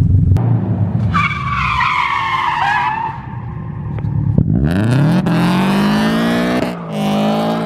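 Subaru BRZ's flat-four engine, fitted with a JDL unequal-length header, over-pipe and 3-inch catback, launching hard. The rear tyres squeal for about two seconds, falling in pitch, starting about a second in. From about the middle the revs climb steeply, drop briefly at a gear change, and climb again near the end.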